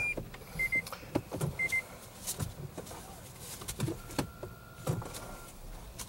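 Irregular knocking and rattling from a 2011 Toyota Prius's 1.8-litre four-cylinder engine, heard from inside the cabin: the rattle the mechanic puts down to a cylinder 1 misfire. Two short high beeps come about half a second and a second and a half in.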